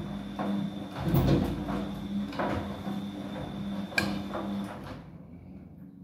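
Siemens front-loading washing machine tumbling a wash load: a steady motor hum and whine, with wet laundry swishing and thudding in the drum every second or so. About five seconds in the drum comes to a stop and the sound falls away.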